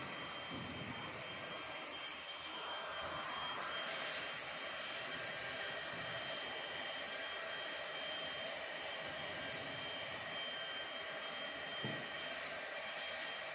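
Hot-air plastic welding gun running steadily: an even hiss of blown air with a thin, steady high whine.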